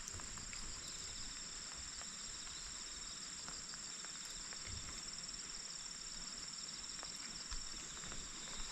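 Insects, crickets and the like, chirring in a steady high-pitched chorus, with a few faint footsteps on a road.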